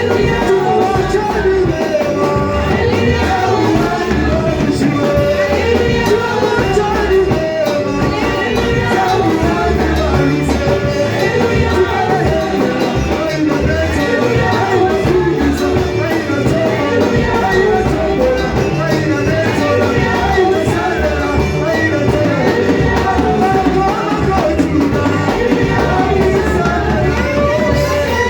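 Church worship music: several voices singing over instrumental backing with a steady bass, continuous and loud.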